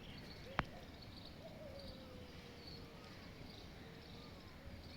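Faint outdoor background noise with one sharp click about half a second in and a faint tone that slowly falls in pitch through the middle.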